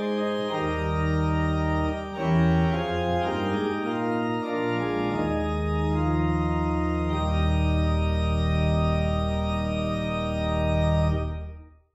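Organ playing slow held chords over a bass line, ending on a long sustained final chord that dies away just before the end.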